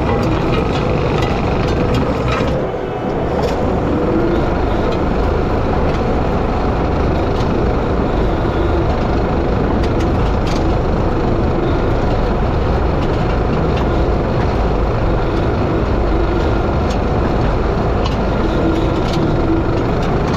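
Skid steer engine running steadily under load while its hydraulic power rake attachment churns through dry soil and small sticks. The level eases briefly about two and a half seconds in.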